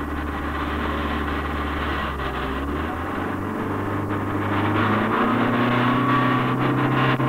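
A car driving on a rough dirt track, heard from inside: steady engine hum with road and tyre noise, the hum stepping up in pitch about three seconds in and again about five seconds in.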